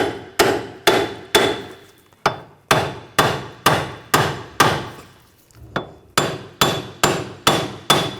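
Hammer blows on a seized rear wheel hub and bearing assembly of a Nissan Rogue, a steady run of sharp metal strikes about two a second with a brief pause about five seconds in, knocking the stuck hub loose from the knuckle.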